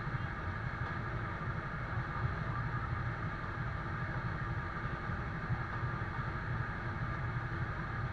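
Diesel engine of an Iveco GCBA 10/32 heavy fire truck running at a steady speed, driving its fire pump to supply the hose. It is a constant low hum with no changes.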